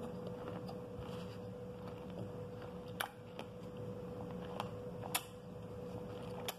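Metal spoon scooping pomegranate arils from a clear dish, with a few sharp clicks, the loudest about three and five seconds in, over a steady hum.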